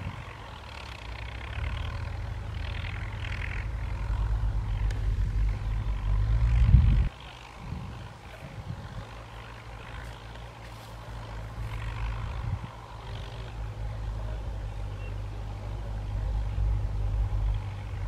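Ford tractor's diesel engine droning steadily under load as it pulls a disc harrow through dry soil. The sound grows louder for about seven seconds, drops suddenly, then builds again near the end.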